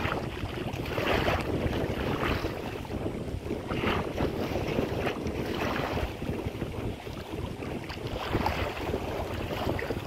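Wind buffeting the microphone over choppy reservoir water, with small waves splashing close by at irregular moments about a second apart.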